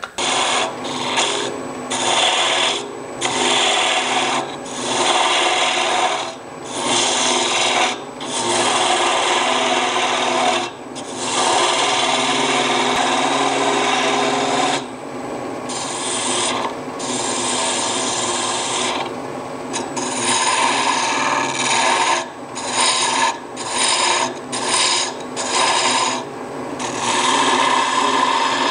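Small spindle gouge cutting a spinning bigleaf maple bell blank on a wood lathe: a hissing, scraping cut in repeated passes, broken by many brief gaps, with the lathe's steady hum underneath.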